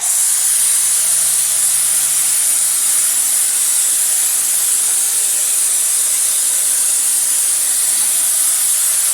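High-pressure washer jet spraying and hissing steadily as an oily, dirty engine block is washed down, cutting off near the end.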